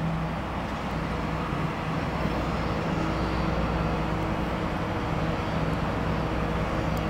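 Low-emission diesel switcher locomotive's engine running with a steady drone and hum as the locomotive moves slowly along yard track.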